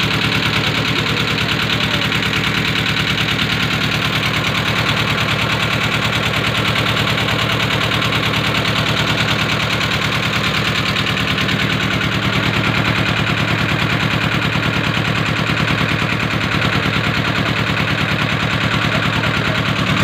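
A passenger boat's inboard engine running steadily at cruising speed, heard on board under the boat's canopy, with a rapid, even pulsing that does not change.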